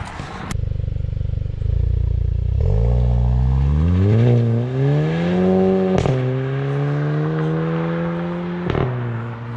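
Volkswagen Mk7 GTI's turbocharged four-cylinder, breathing through a Clubsport muffler, rumbling low, then pulling away with the revs rising, dipping briefly at a gear change and rising again before holding steady. Two sharp cracks come about six seconds in and near the end.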